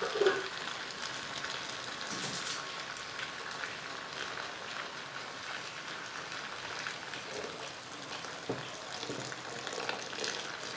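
Thin stream of boiling water pouring steadily into a plastic tub of liquid soap mixture, splashing into the foam on its surface.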